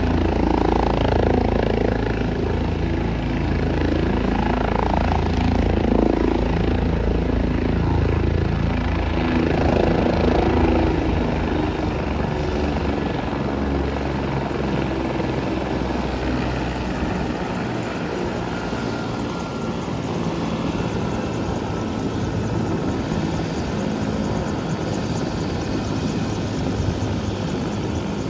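Helicopter running on the ground with its rotor turning: a continuous turbine and rotor noise that surges in the first ten seconds or so, then settles with less low rumble past the halfway point.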